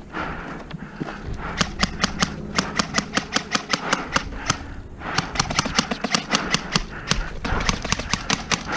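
Airsoft rifles firing strings of rapid shots, sharp snapping clicks about six a second, with a pause of a couple of seconds in the middle before the firing resumes.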